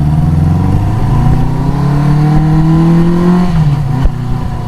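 1973 Honda CB350 Four's air-cooled inline-four engine running and being revved. The pitch climbs steadily for about two and a half seconds, then falls back to idle. A sharp click comes about four seconds in.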